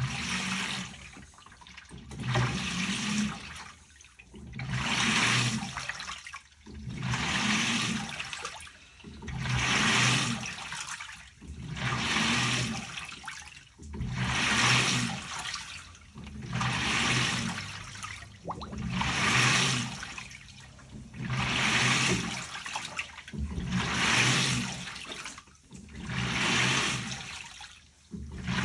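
LG Turbodrum WTR807 direct-drive top-loading washer agitating its load in water. It starts abruptly, then water swishes in regular surges about every two and a half seconds, each stroke carrying a low motor hum underneath.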